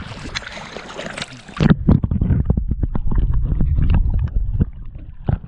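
Splashing of shallow water around a wading angler's legs, then, about a second and a half in, the camera goes under the surface: a muffled underwater rumble full of bubbling clicks, which stops just before the end.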